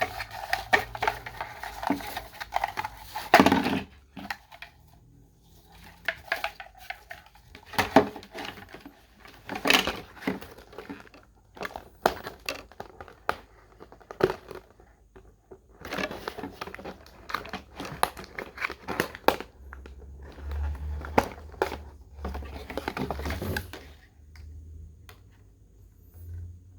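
Plastic toy packaging crinkling and rustling in irregular bursts as it is handled and opened, with sharp clicks of plastic pieces.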